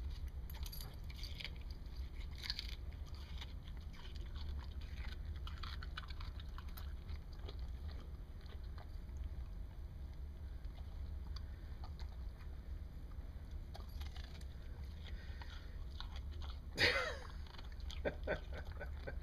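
Siberian husky chewing and crunching pieces of watermelon with rind, in scattered small bites over a steady low hum. One louder, noisier burst comes near the end.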